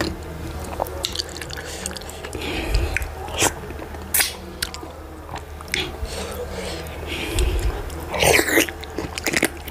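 Close-up eating sounds of fufu and achi soup eaten by hand: wet chewing, lip smacks and short sharp mouth clicks, with a louder run of them about eight seconds in.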